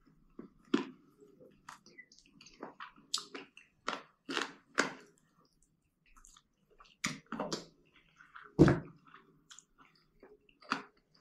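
A person chewing and biting into a spicy fried chicken wing: irregular short crunches and mouth clicks, with one louder thump about eight and a half seconds in.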